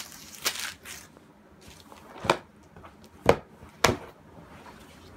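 A person moving about on a leather couch: a couple of light rustles, then three dull thumps about a second apart in the second half.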